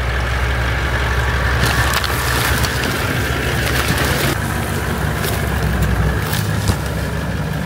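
Four-wheel-drive ute's engine running steadily at low speed as it crawls over fallen logs, with the tyres crunching over wood and bark.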